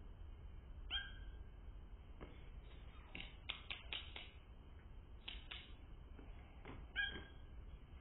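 Eurasian nuthatch calls, slowed down and lowered in pitch: a short call about a second in and another near the end, with a quick run of short clicks in between.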